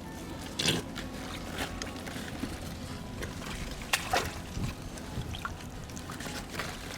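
Shallow water sloshing and splashing in several short, irregular bursts, the strongest about four seconds in, as fish are scooped up by hand.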